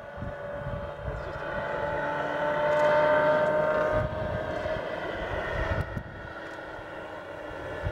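Radio-controlled scale CH-53A helicopter in flight: the steady whine of its model turbine engine and its spinning rotors. It grows louder as the helicopter passes closest, about three seconds in, then fades as it moves away.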